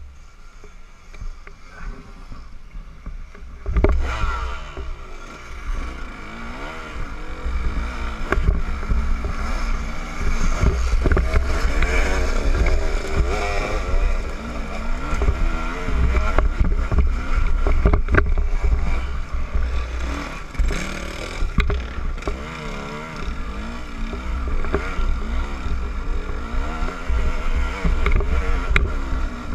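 KTM 200 EXC two-stroke single-cylinder engine running quietly at first, then about four seconds in opened up hard as the bike climbs a rocky hill, revs rising and falling with the throttle.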